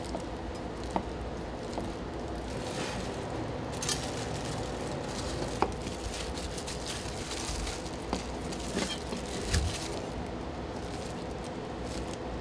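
Steady background hum of kitchen ambience with scattered light clicks and knocks.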